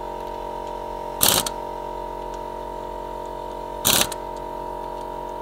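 Draper air impact gun fired in two short, loud bursts about two and a half seconds apart, snugging up car wheel bolts that were first done up finger tight. A steady mechanical hum runs underneath.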